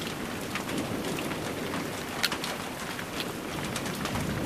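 Steady rain falling, with many individual drops ticking close by; one sharper tick comes a little past halfway.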